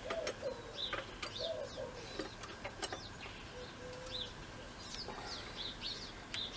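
Small birds chirping repeatedly in short notes, with a dove cooing low in the first couple of seconds and again briefly near the middle. A few faint clicks sound in the first three seconds.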